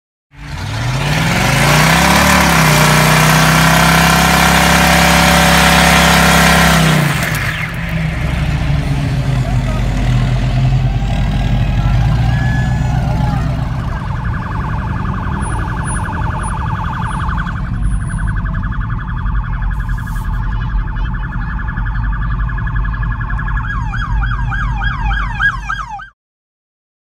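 Burnouts: engines held at high revs with tyres spinning on pavement. For the first several seconds the engine note rises and then holds under heavy tyre-spin noise. After that the engine runs on beneath a steady high tyre squeal, then a run of short rising chirps near the end before the sound cuts off suddenly.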